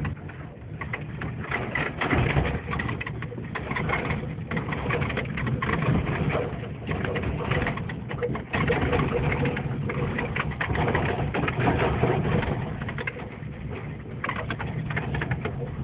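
Car driving hard over a bumpy dirt track: the engine runs steadily under a constant noise of the car's movement, with frequent knocks and jolts from the rough ground.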